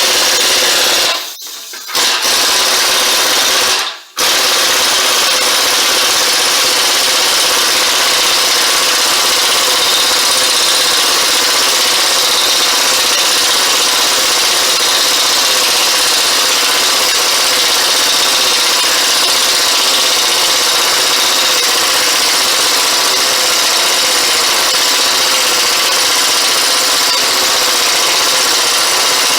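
Power tool, most likely an impact wrench, hammering continuously as it turns the bearing press tool's threaded screw to draw the front hub into the new wheel bearing. It stops briefly about one second in and again about four seconds in, then runs without a break.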